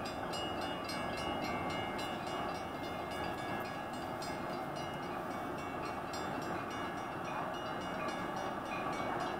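Metra commuter train approaching with its cab car leading: a steady running noise from the train, with a few faint high tones above it.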